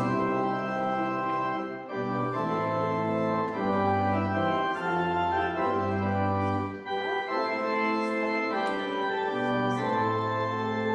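Organ playing a hymn tune in held, sustained chords, the bass moving from note to note.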